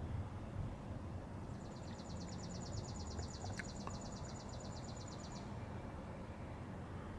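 Steady low wind rumble outdoors, with a high, dry, rapid trill of about ten even pulses a second that starts about a second and a half in and stops about four seconds later.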